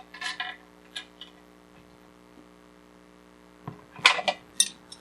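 Short metallic clinks and knocks of washers, a nut and hand tools as a wheel is bolted onto a small air compressor: a cluster near the start, single clinks about a second in, and a louder flurry about four seconds in, over a steady electrical hum.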